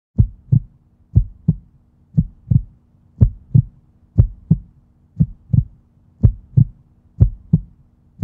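Heartbeat sound effect: pairs of low thumps, about one pair a second and eight in all, over a faint steady hum.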